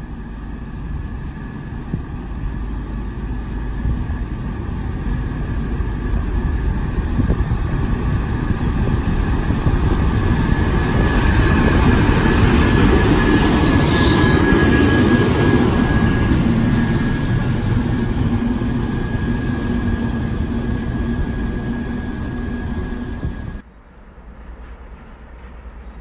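TEP70BS diesel locomotive approaching and passing close by, its engine running with a steady high whine on top. The sound grows louder until the locomotive draws level about halfway through, then fades. Near the end it cuts off abruptly to the quieter sound of a more distant train.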